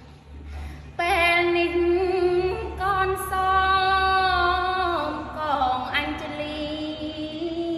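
A young woman's voice chanting Khmer smot, unaccompanied. After a pause of about a second she holds long, wavering notes with ornamented turns, and the line falls in pitch about five seconds in.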